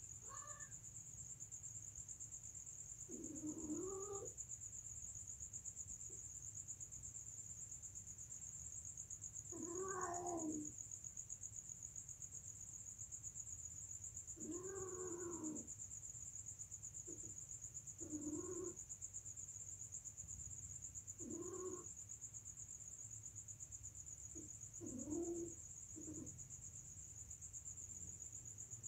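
Domestic cats yowling while mating: drawn-out, wavering low calls about a second long, repeated every few seconds, about ten in all.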